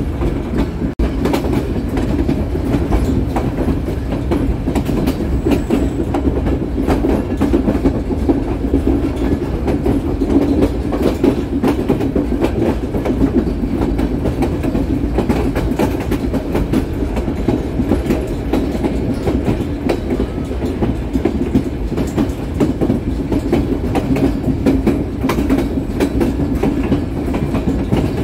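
Railroad car of the White Pass railway rolling along the track, heard from its open end platform: a loud, steady rumble of wheels on rail with many small clicks and knocks.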